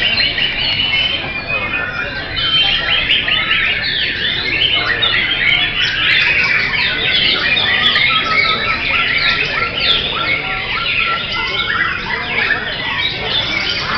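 Many caged white-rumped shamas singing at once, a dense, unbroken chorus of overlapping whistles and chattering phrases.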